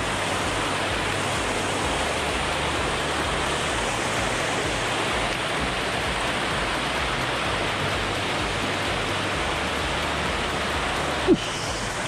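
Small waterfall pouring into a rocky stream pool: a steady, even rush of falling water. One brief sharp knock near the end.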